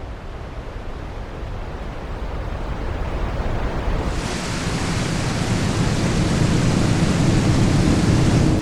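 A rushing noise swelling steadily louder, growing suddenly brighter and hissier about four seconds in, then cutting off abruptly at the end.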